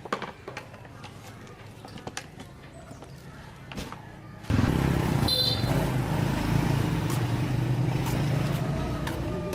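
A few light clicks and taps, then about halfway through a chainsaw's two-stroke engine cuts in abruptly and runs steadily and loudly.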